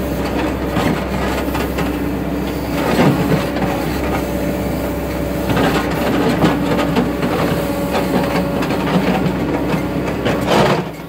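Cat 428F backhoe loader's diesel engine running under hydraulic load as the backhoe digs, the engine note swelling a few times as the boom and bucket work. Scraping and clatter of the bucket against soil and stones.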